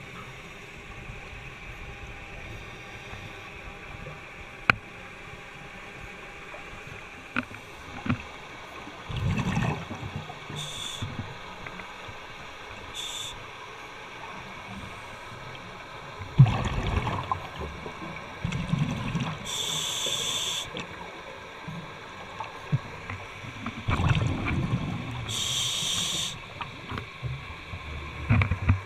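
Scuba breathing heard underwater through a diving regulator: short hissing inhales alternate with low rumbling bursts of exhaled bubbles, a few times over the stretch. A few sharp clicks come early on.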